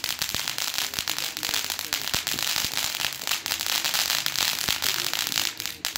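Ground fountain firework spraying sparks: a steady loud hiss thick with rapid crackling, cutting off just before the end as it burns out.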